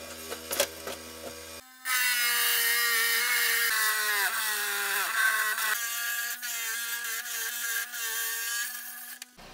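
Lapidary trim saw with a diamond blade: first the motor runs with a steady hum, then from about two seconds in the blade cuts into an agate with a loud, high ringing whine. The whine's pitch sags and wavers partway through the cut, and it stops abruptly near the end.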